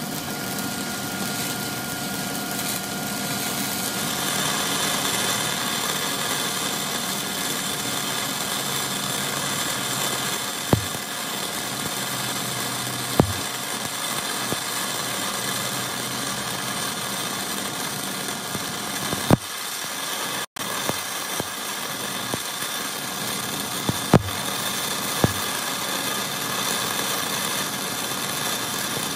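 Stick-welding arc of a cellulose pipeline rod (6010-family) at about 83 amps, running a downhill root pass on steel pipe: a steady crackling hiss, with a few sharp pops scattered through it.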